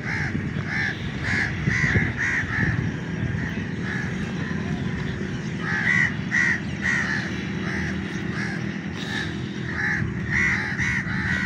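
Crows cawing over and over, in runs of harsh calls roughly a third of a second apart: one run at the start, one about halfway through and one near the end. A steady low background rumble lies beneath.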